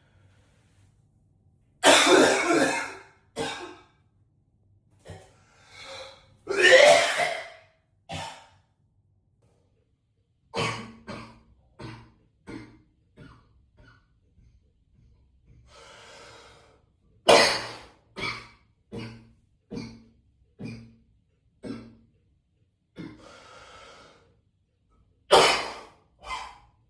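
A man coughing in fits in a small echoey bathroom. There are hard, harsh coughs, runs of short quick coughs, and audible breaths drawn between them.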